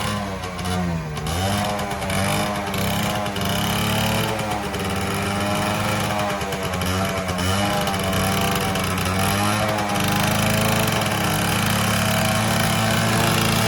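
Suzuki Max 100's single-cylinder two-stroke engine running on its stock exhaust, its revs wavering up and down, with a brief dip about a second in.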